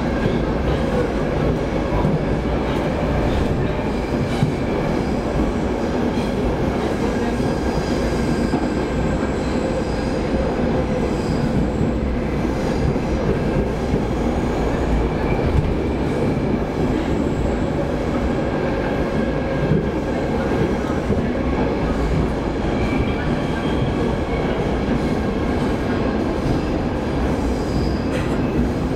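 Stockholm Metro train running through a tunnel, heard from inside the carriage: a steady loud rumble of wheels on track, with faint high wheel squeals coming and going.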